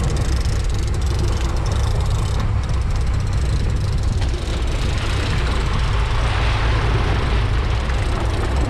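Boat engine running under way, with wind blowing across the microphone and water rushing past the hull. The water hiss grows louder about five seconds in.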